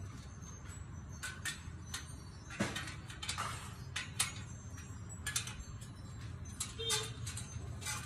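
Scattered light metallic clicks and taps from a spoked motorcycle wheel being trued on a truing stand, as the rim is turned by hand and a spoke is tightened. A steady low hum runs underneath.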